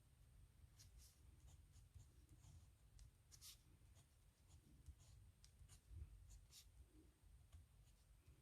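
Faint scratching of a pen nib on paper as characters are written by hand, a series of short, irregular strokes.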